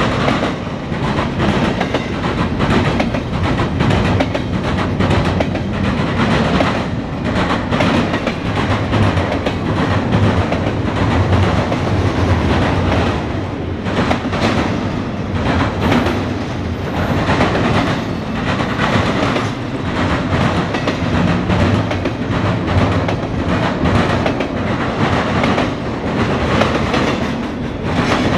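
Norfolk Southern double-stack intermodal train's container well cars rolling past close by: steady noise of steel wheels on rail, with repeated clickety-clack clicks as the wheels cross rail joints.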